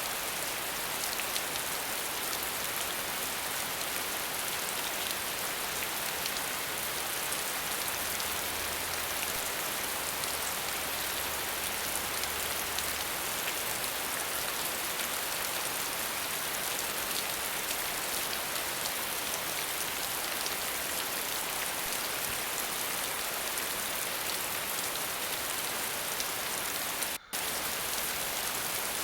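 Waterfall: a steady, even hiss of falling water, dense with fine splashing. It cuts out for an instant near the end.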